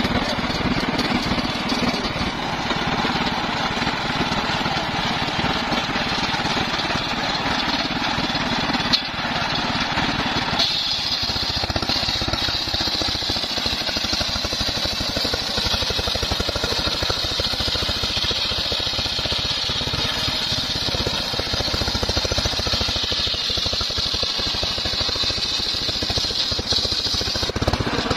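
Bench-mounted circular saw ripping a teak log lengthwise: steady machine running and blade cutting, with a high whine from the blade setting in about a third of the way through and lasting until near the end.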